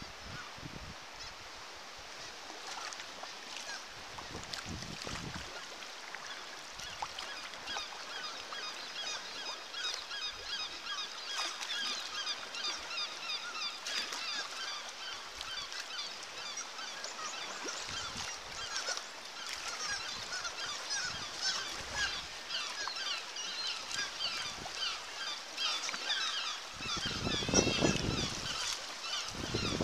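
Cliff seabird colony, kittiwakes by the sound of it, calling in a dense chorus of short high cries that starts faint and builds steadily louder. A louder low rush comes near the end.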